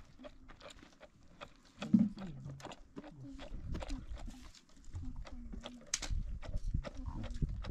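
Irregular knocks of a long wooden pestle pounding in a small container, with a low, wavering animal call in the background, loudest about two seconds in.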